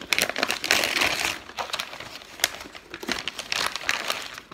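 Gift-wrapping paper and tissue paper being crumpled and pulled off a present by hand: a run of crackling and rustling, loudest about a second in.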